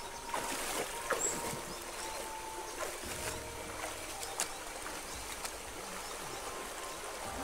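Shallow stream rushing over rocks, with a few short splashes of feet wading through the water.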